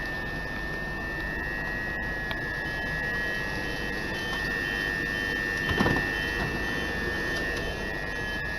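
Electric multiple-unit passenger train standing at the platform, its onboard equipment giving off a steady high-pitched whine over a low hum. A faint repeated beeping comes in for a few seconds midway, and there is a brief louder sound about six seconds in.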